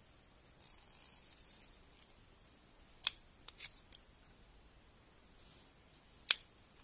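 A few sharp clicks: one about three seconds in, a quick run of three or four just after it, and a louder single click near the end.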